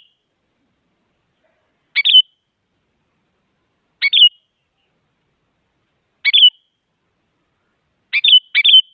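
Sooty-headed bulbul giving short, sharp calls about every two seconds, each ending on a falling note, with two calls in quick succession near the end.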